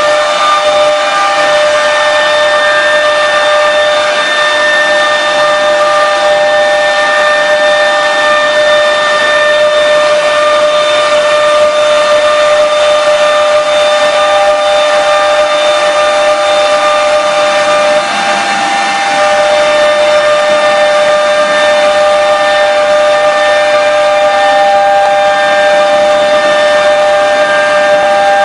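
Air-cooled spindle of a CNC router running at high speed while engraving MDF: a steady whine of several high tones over a hiss of cutting noise. It dips briefly about two-thirds of the way through, as the cutter's load changes.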